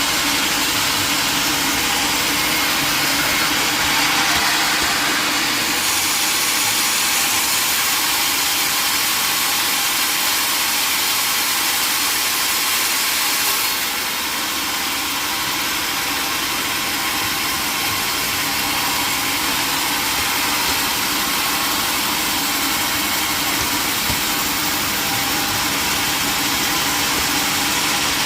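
Old sawmill running steadily, a dense mechanical hiss; the high-pitched part of the noise changes about six seconds in and again about fourteen seconds in.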